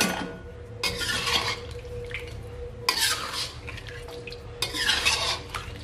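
Metal spatula stirring and scraping through a tofu-and-egg stew in a stainless steel wok: a knock at the very start, then three scraping strokes about two seconds apart, stirring in freshly added palm sugar to dissolve it. A steady low hum runs underneath.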